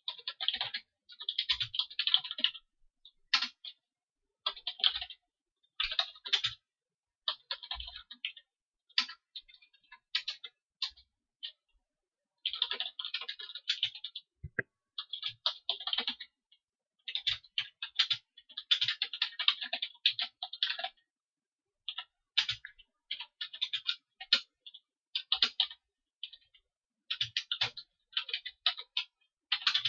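Computer keyboard typing in quick runs of keystrokes with short pauses between them.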